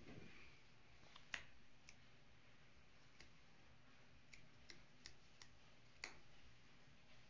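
Near silence broken by about eight scattered, faint clicks: a small dog's claws tapping on a hard tabletop as it shifts its feet. The sharpest click comes a little over a second in, another about six seconds in.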